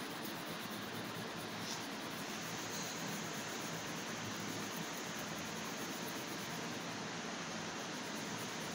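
Steady, even hiss of background noise, with no distinct strokes or knocks standing out.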